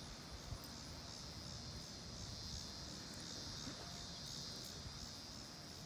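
A steady high-pitched insect drone pulses about three times a second, over a low outdoor rumble. There is a single short tap about half a second in.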